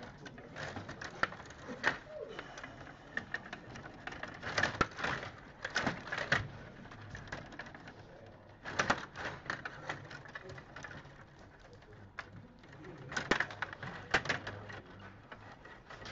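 Stiga Play Off table hockey game in play: the metal control rods clatter and the plastic players click against the puck and the rink boards. The sound comes in bursts of rapid clicks and knocks, several seconds apart.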